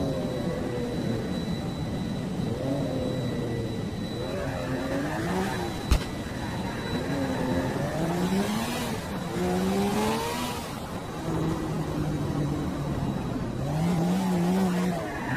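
Car engine revving sound effects: a series of short rising pitch sweeps, with a single sharp click about six seconds in.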